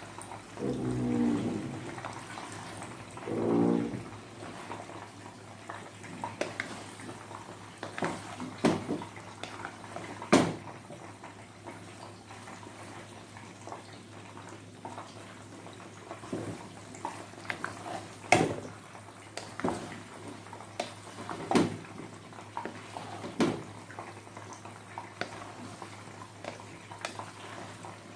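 Wooden spatula stirring and tossing noodles in a stainless steel pot, with irregular knocks and scrapes against the pot's side over a steady low hiss.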